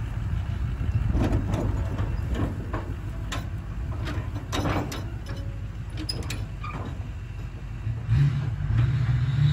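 Pickup truck engine running as it pulls away towing an empty dump trailer. The trailer gives a run of short clanks and rattles as it rolls over the uneven grass.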